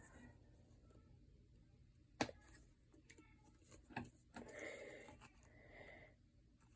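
Near silence broken by a few faint clicks and taps: one sharp click a little over two seconds in, then small ticks and a soft brief scraping or rustling in the second half.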